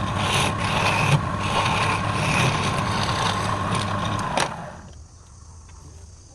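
Wood lathe running with a steady hum and whine, which cuts off with a click about four and a half seconds in.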